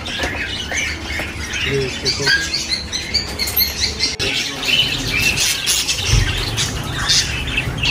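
Many caged small parrots, budgerigars and lovebirds, chirping at once: a dense run of short, overlapping high chirps.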